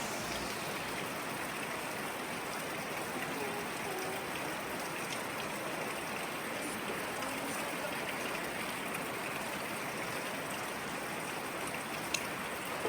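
Virgin River flowing: a steady, even rush of moving water.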